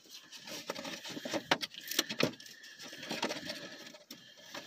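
Cardboard and plastic packaging being handled as a Funko Pop vinyl figure is taken out of its box: irregular light rustling with scattered clicks, a few sharper ones about two seconds in.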